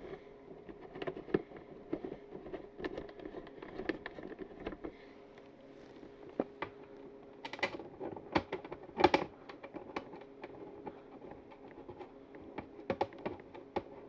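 Scattered light clicks and taps of a motorcycle fairing being shifted into position and screws being started into it by hand, with a louder knock about nine seconds in.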